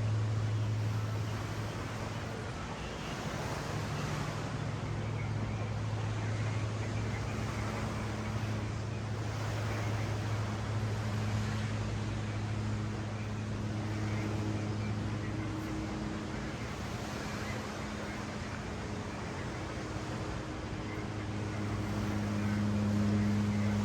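Ocean surf washing on a beach as a steady hiss, with a continuous low mechanical hum underneath that swells near the end.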